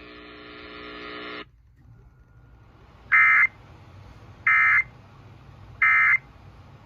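A steady electronic buzz for about a second and a half, then three identical short, screechy data bursts about a second and a half apart: the Emergency Alert System's SAME End of Message (NNNN) tones closing the warning.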